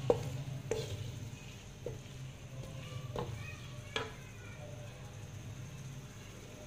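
Wooden spatula stirring onions and chopped tomatoes frying in a kadhai: a light sizzle with a few sharp knocks of the spatula against the pan, the loudest about four seconds in.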